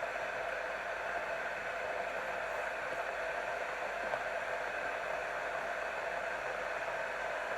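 Chainsaw running at a steady speed, an even whirring noise with no change in pitch.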